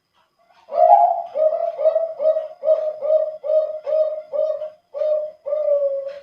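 Male zebra dove (perkutut) of the Bangkok contest strain singing one full song with a deep, full voice: an opening note, then a run of about nine short even coos, two to three a second, ending on a longer drawn-out coo.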